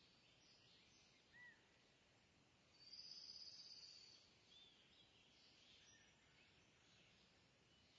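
Near silence with faint bird chirps: a few short arching notes and one longer high trill about three seconds in, over a faint hiss.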